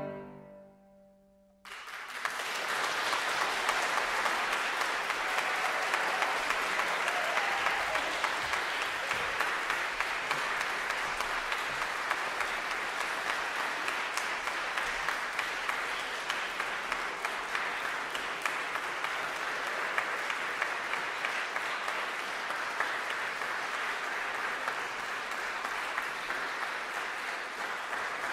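The last violin-and-piano chord dies away, and after a second or two of silence an audience breaks into applause that goes on steadily.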